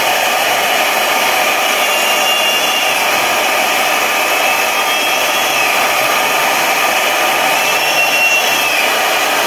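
CNC router spindle running with a 4 mm up-down cutter ramping into 20 mm expanded PVC sheet at reduced feed. It makes a steady whine and hiss, with a faint high cutting tone that comes and goes a few times.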